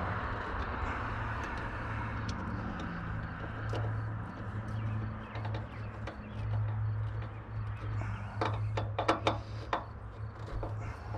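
Hose clamps being tightened by hand around a hose on a new fitting: scattered small clicks and scrapes, with a quick run of sharper clicks about eight and a half to ten seconds in, over a steady low hum.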